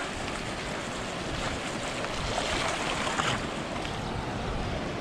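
Steady rushing noise of a mountain bike being ridden: wind on the microphone and the bike rolling over the trail, swelling slightly around the middle.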